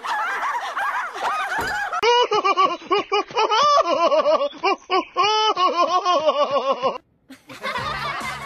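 Cartoon character's laughter, snickering in rapid repeated bursts as edited clips, with a sudden short drop-out about seven seconds in.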